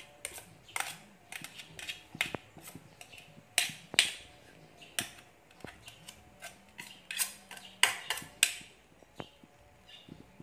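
Metal spatula scraping and knocking against a wok while turning sticky glutinous rice: a run of irregular clicks and short scrapes, loudest a few seconds in and again near the end.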